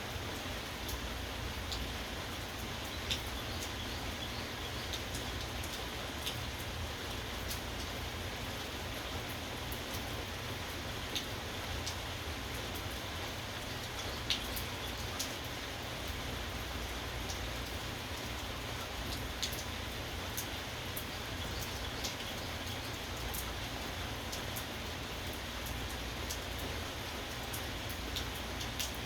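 Steady rain falling, with a continuous hiss and scattered sharper drops striking a surface.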